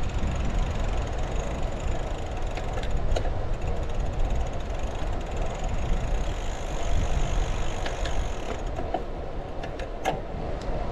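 Wind buffeting the microphone over the steady rolling noise of a road bike's tyres on asphalt, with a few sharp clicks near the end.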